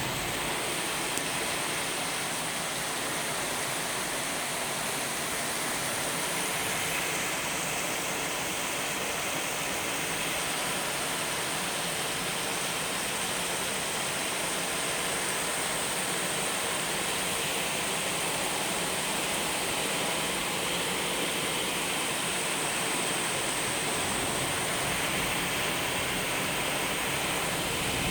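Heavy thunderstorm rain pouring down steadily.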